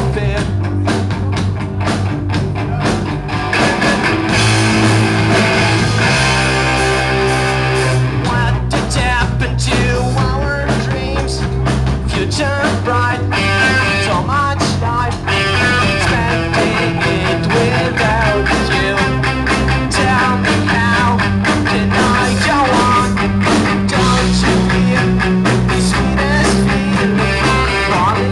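Live rock band playing an instrumental passage between sung lines: guitar over bass and a steady drum beat.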